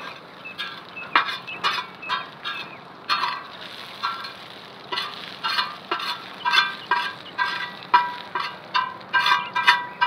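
Metal spatula scraping and clinking against a large iron tawa as sliced onion is stirred and fried, with a faint sizzle beneath. The ringing strokes come about twice a second, growing louder and quicker in the second half.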